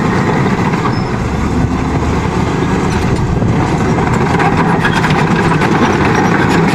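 Komatsu D65PX crawler bulldozer's diesel engine running steadily as the machine moves and pushes soil with its blade.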